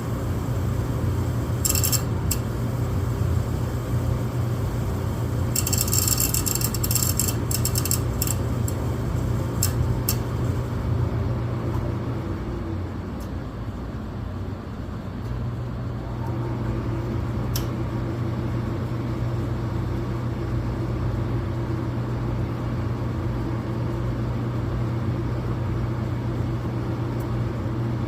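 Furnace running with a steady hum, broken by a quick run of clicks a few seconds in. The hum then dies away at about twelve seconds and comes back about three seconds later, with another single click soon after: the burner shutting off and re-lighting, a fault the owner cannot explain.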